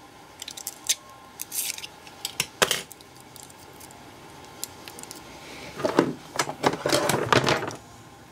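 Clicks and light knocks as a pack of 18650 lithium-ion cells is handled and turned over, with a longer spell of scraping and rustling about six to seven and a half seconds in. A steady hiss of heavy rain on the garage roof runs underneath.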